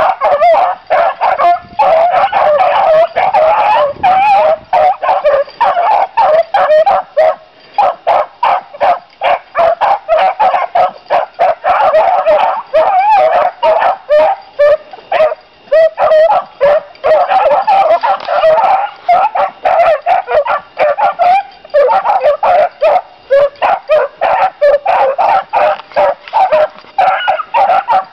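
A pack of beagles baying over one another without a break, only brief lulls, as they run a rabbit's trail.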